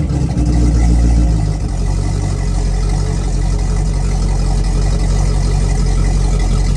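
Volvo Penta 5.7 V8 sterndrive engine running just after starting, a little higher for about the first second and a half, then settling to a steady idle.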